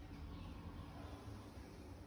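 Faint room tone: a low steady hum and hiss, with no distinct animal calls.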